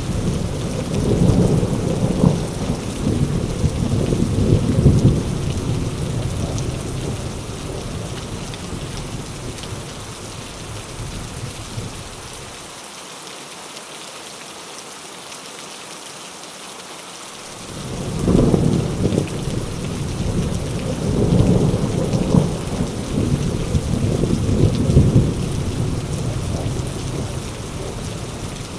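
Heavy rain falling steadily, with two long rolls of thunder. The first rumbles and fades away over the first third, and the second starts about two-thirds of the way in and slowly dies down.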